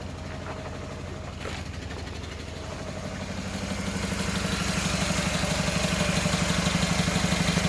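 Renault Sandero 1.6 four-cylinder petrol engine running with an even pulsing exhaust beat, growing louder about three seconds in. The owner says the problem still persists, with misfiring and lack of power even after a new throttle position sensor.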